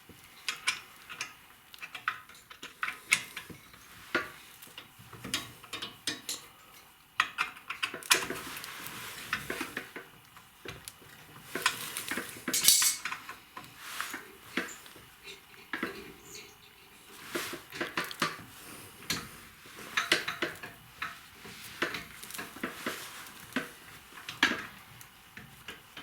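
Metal hand tools and parts clinking and clicking while the bolts of a car's rear brake caliper are unscrewed with a hex key, with a few longer scraping noises.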